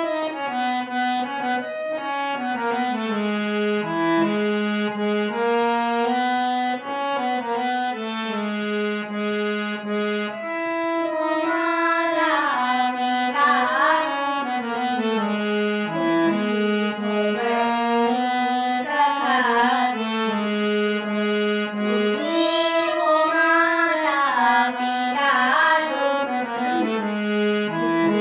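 Indian devotional music: a harmonium plays a melody in held, reedy notes that step from pitch to pitch, with wavering ornamented phrases at times.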